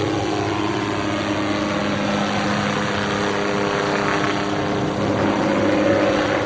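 A helicopter running steadily, its engine and rotor giving a constant hum.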